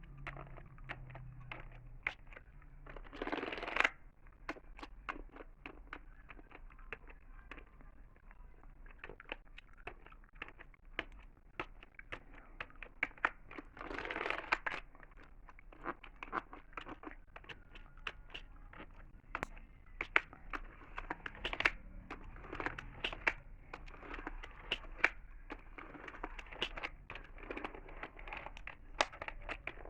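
Close-miked gum chewing: irregular sharp, wet clicks and snaps, with two longer crackly bursts, one a few seconds in and one about midway.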